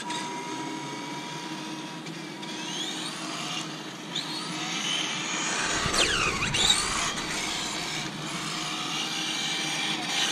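The brushed electric motor of a Tamiya TT-02 RC car whines as the car drives at speed, its pitch rising and falling with the throttle. About six seconds in the whine dips sharply and climbs again.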